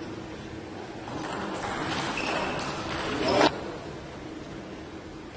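Table tennis rally: a celluloid ball clicking off rackets and table about half a dozen times in quick succession, echoing in the sports hall, then stopping abruptly.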